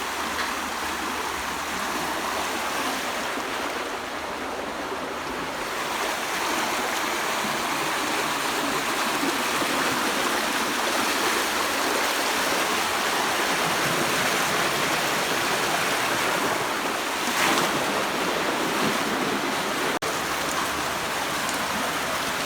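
Floodwater rushing in a strong current, a steady rushing noise that grows a little louder about six seconds in.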